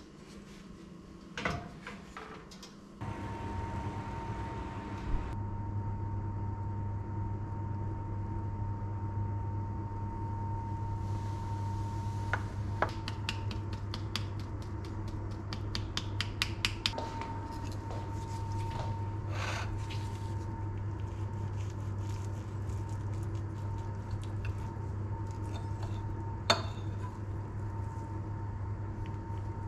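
Kitchen handling sounds over a steady electrical hum: a metal muffin tin knocks into the oven at the start, a run of quick clicks comes in the middle as a small can is handled, and cutlery clinks sharply on a ceramic plate near the end.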